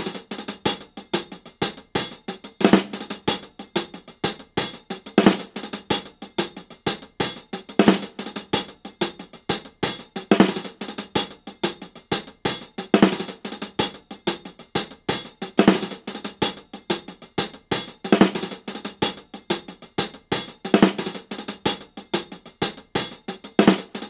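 Drum-kit beat of background music: rapid hi-hat and snare ticks with a heavier hit about every two and a half seconds.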